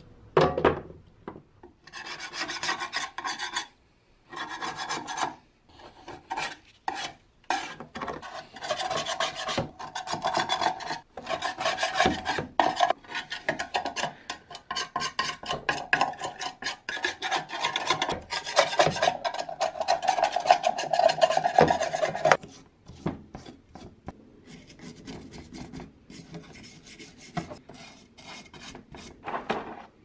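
A metal scraper blade pushed in repeated short strokes across a wooden coffee-grinder box, rasping off old finish that stripper has softened and wrinkled. The scraping is loudest through the middle and turns quieter and sparser for the last several seconds. A sharp knock comes about half a second in.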